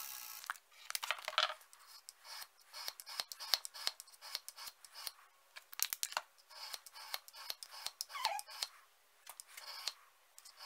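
A bench grinder winding down just after being switched off, then a run of small irregular clicks and light scrapes from hands working with a sharpening stone and a plastic water bottle.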